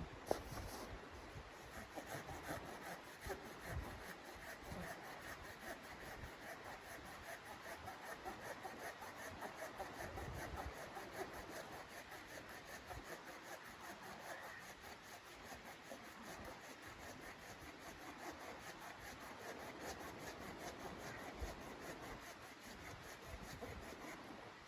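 Continuous rough rubbing and scraping, with a single sharp click just after the start.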